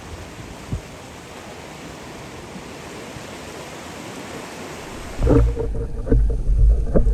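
Steady outdoor wash of wind and sea noise. About five seconds in it gives way to a louder, muffled low rumble of water heard through an action camera held underwater.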